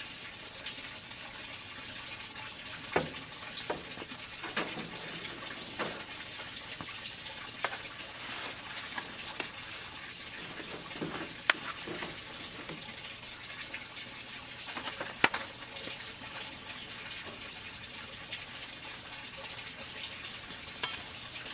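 Scattered clicks and knocks of the smoker being opened and the pork butt loaded onto its grate, over a steady hiss.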